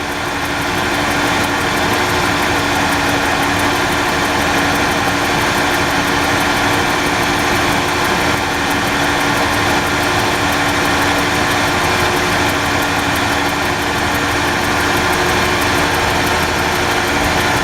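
An engine idling steadily at a constant speed, a continuous hum that does not change.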